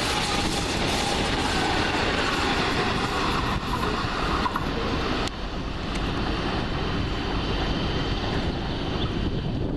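A train running past on the track: a steady rumble and rush of wheel noise, with a faint falling whine in the first seconds. The high hiss drops away suddenly about five seconds in while the low rumble continues.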